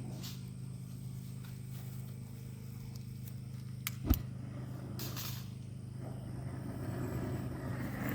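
A steady low engine-like hum, with a sharp click and then a louder knock about four seconds in, and a rushing noise building near the end.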